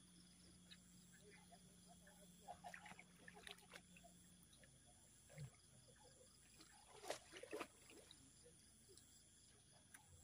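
Near silence: faint background with a low steady hum that fades about halfway through, and a few faint brief sounds clustered about three and seven seconds in.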